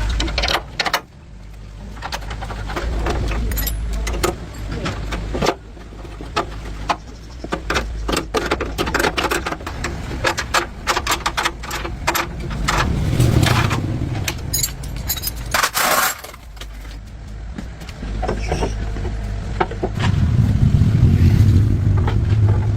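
Workshop work on metal parts: many quick clinks and knocks of tools and metal pieces, with a low hum coming in around the middle and again over the last few seconds.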